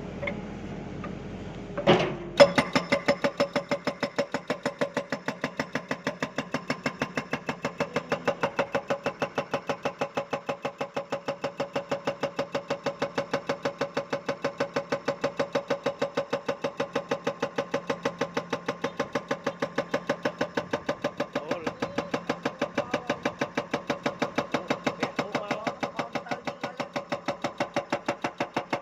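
Excavator-mounted hydraulic breaker hammering rock: one loud strike about two seconds in, then a steady, even train of rapid blows, several a second, with the excavator's engine running under it.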